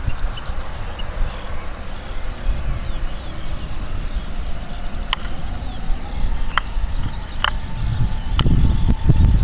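Boeing 737-800's CFM56 jet engines at takeoff thrust, a distant low rumble with a faint whine that grows louder near the end as the airliner rolls down the runway. A few sharp clicks sound in the second half.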